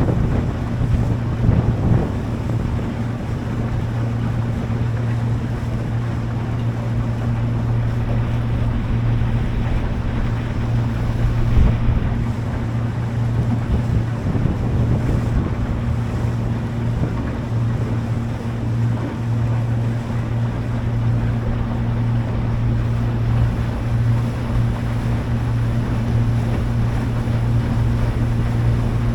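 Small boat's engine running at a steady speed, a constant hum, with water rushing along the hull and wind buffeting the microphone.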